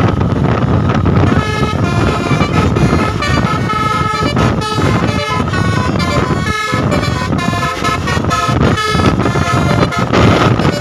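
Indonesian tour bus's basuri "telolet" multi-tone horn playing a quick tune of short tooting notes, starting about a second and a half in, over loud engine and road noise.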